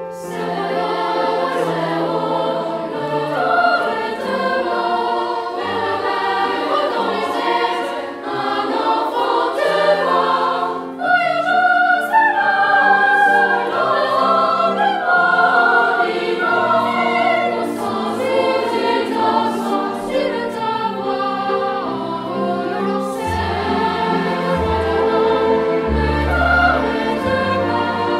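Choir singing a slow song with instrumental accompaniment, with sustained chords over a stepping bass line.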